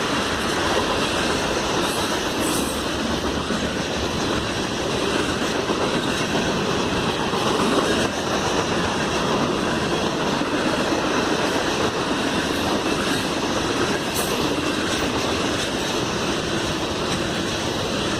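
Norfolk Southern freight train rolling past, its cars' steel wheels on the rails making a steady, even noise.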